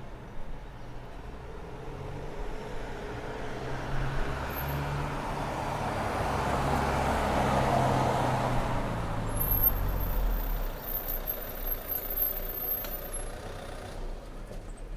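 A motor vehicle passing by: engine and tyre noise swells to a peak about halfway through, then fades away.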